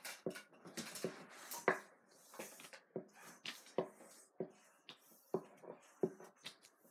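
Craft supplies being handled: irregular sharp clicks and taps, several a second, with brief rustling between them.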